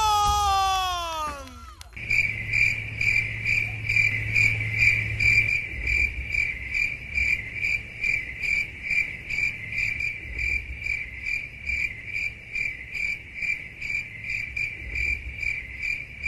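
Crickets chirping in a steady, even pulse of about three chirps a second, the stock comic-silence cricket sound effect laid under a dark shot. Over the first two seconds, before the crickets begin, a pitched sound slides down in pitch.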